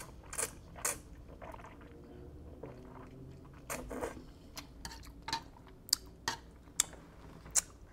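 Close-up mouth sounds of someone eating instant fried noodles: a slurp of noodles, then soft, wet chewing. A few short, sharp clicks follow in the second half.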